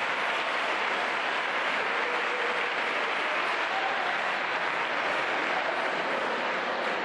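A large audience applauding steadily, with dense, continuous clapping throughout.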